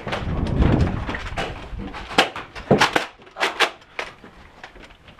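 Rumbling and rustling on the microphone, then a quick run of sharp clicks and knocks a couple of seconds in, about five or six in all.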